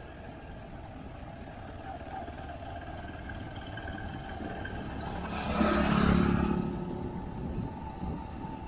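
Steady road and engine noise from a vehicle driving along a road. Another vehicle passes close by about five to seven seconds in, rising to a peak and fading.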